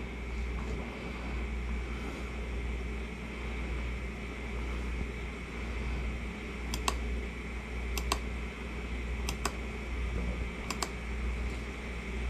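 A computer mouse clicking: four quick double clicks spread over about four seconds starting halfway through. A steady low hum runs underneath.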